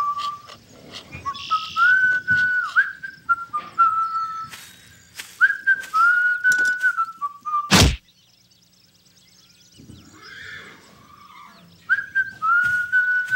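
A person whistles a slow tune, one clear note at a time with small slides between notes, over scattered light taps. About eight seconds in, a single loud sharp crack cuts the whistling off. The whistling picks up again near the end.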